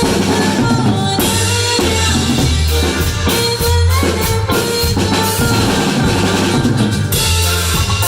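Cumbia band music with a drum kit and a steady, repeating bass line under pitched instrument parts.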